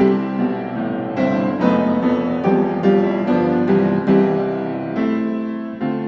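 Background music: a gentle piano piece playing notes and chords at an unhurried pace.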